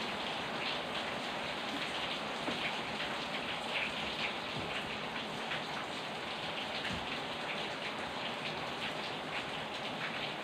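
Steady rain with a dense, irregular patter of drops.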